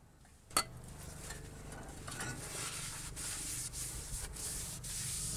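A short hiss of aerosol brake cleaner about half a second in, then steady rubbing as a gloved hand works over the new brake rotor.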